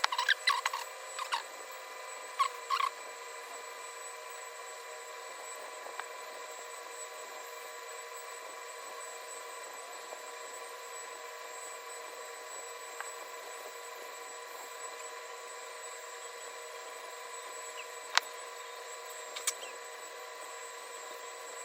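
Steady hiss with a faint steady hum, broken by a few short high squeaks in the first three seconds and two sharp clicks near the end.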